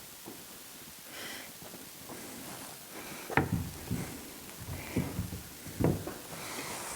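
A few separate knocks and clunks from a sheet of OSB being handled on a drywall panel hoist, spread over the second half.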